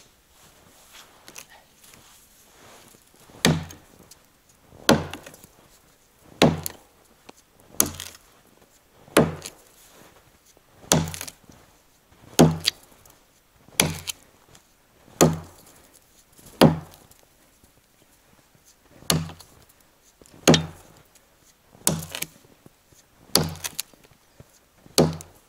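Forged hand axe chopping into the trunk of a dry standing fir: a steady series of heavy blows, about one every second and a half, starting a few seconds in, with one short pause about two-thirds through.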